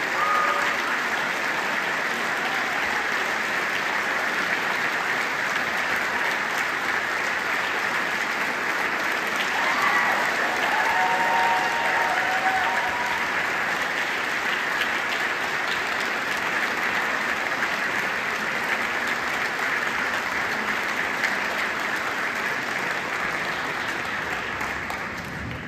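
Sustained applause from a standing concert audience, with a few short high calls from the crowd about ten seconds in; the clapping starts to die away near the end.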